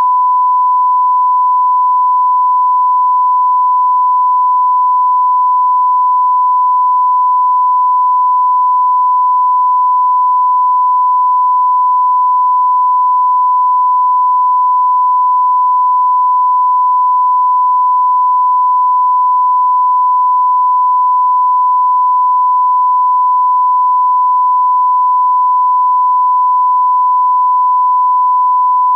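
Continuous electronic test tone of the kind played with a no-signal or test-card screen: a single pure beep held at one pitch and an even level, without a break.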